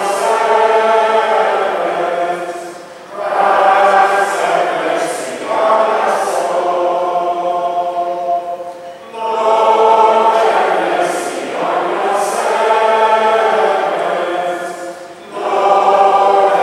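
A congregation singing together, a slow liturgical chant or hymn sung in phrases of a few seconds with short breaks for breath between them.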